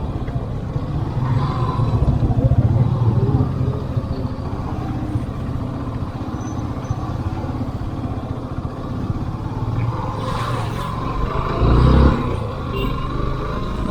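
Motorcycle engine running steadily while riding a rough trail, with a brief louder rumble near the end.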